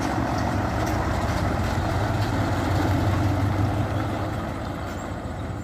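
A heavy truck's engine idling: a steady, low diesel-like rumble that eases slightly near the end.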